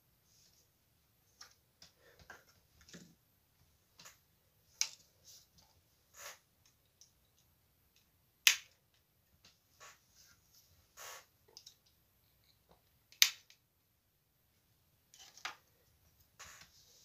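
Small plastic LEGO pieces being handled: scattered light clicks and taps at irregular intervals, with two much sharper, louder clicks, about halfway through and again a few seconds later.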